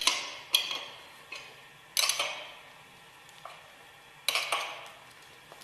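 Steel wrench clinking against a hex head screw on a separator hood as it is fitted and turned to bolt the hood tight: four sharp metallic clinks that ring briefly, with a few fainter ticks between them.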